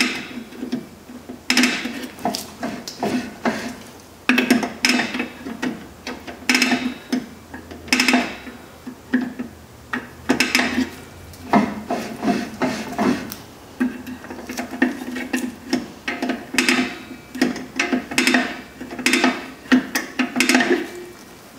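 Brake spoon turning the star-wheel self-adjuster of a 1996 Chevy Tahoe's rear drum brake through the backing-plate access hole: repeated metallic clicks and scrapes in bursts every second or two. Between adjustments the new drum is turned by hand to check that the shoes drag lightly.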